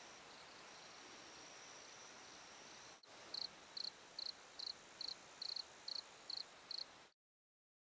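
Faint night insects: a steady high trill, then after a break about three seconds in, a cricket chirping evenly about two and a half times a second. The sound cuts off suddenly about a second before the end.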